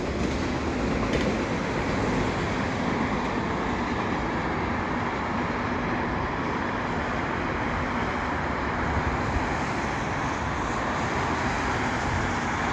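Steady hum of nearby road traffic, an even wash of tyre and engine noise at a constant level.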